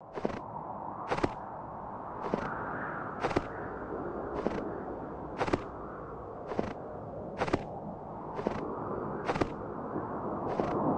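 Slow footsteps crunching in snow, about one step a second, over a steady rushing background noise.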